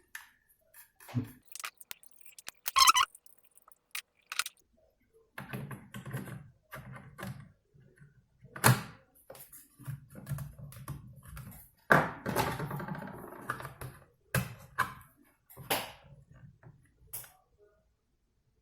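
An SSD being handled and fitted into a laptop's hard-drive bay: irregular light clicks, knocks and rattles, with a sharper knock about nine seconds in and a longer rattle around twelve seconds in.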